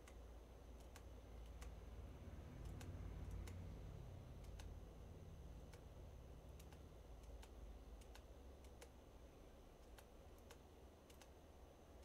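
Faint computer mouse clicks, a dozen or so at irregular intervals, over a low room hum: lines being clicked away one at a time with a CAD trim tool.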